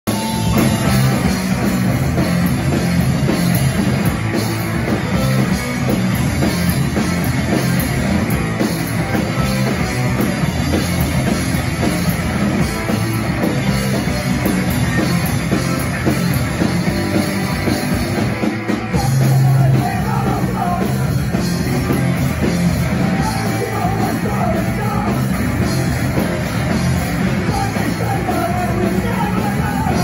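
Live rock band playing, with electric guitars, bass guitar, drum kit and a singer. There is a brief drop just before twenty seconds in, then a loud held low note, before the band carries on with vocals over it.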